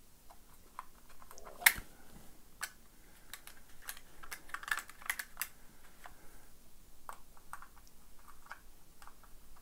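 Small screwdriver tightening the screws of an analogue multimeter's back cover, making scattered light clicks and scrapes. One sharper click comes about one and a half seconds in.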